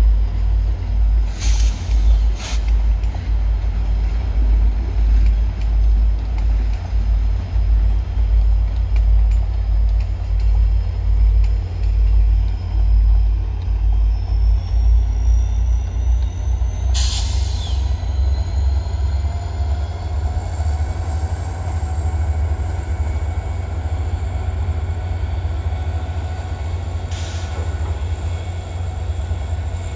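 VIA Rail diesel-hauled passenger trains moving slowly through a rail yard, giving a heavy, uneven low rumble. A few short hisses come through, the loudest about 17 seconds in, and a faint whine rises slowly in the second half.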